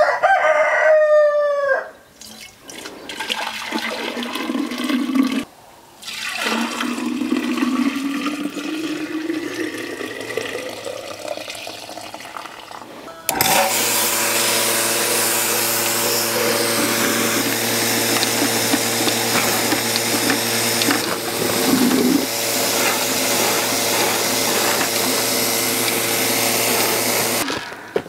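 A rooster crows once at the start, its call falling in pitch at the end. About halfway through, a portable milking machine's electric vacuum pump comes in abruptly and runs steadily with a constant hum and an airy hiss.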